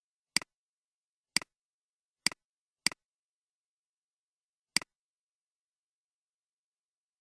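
Computer mouse clicking five times at uneven intervals, each a sharp press followed by a softer release click, with silence between.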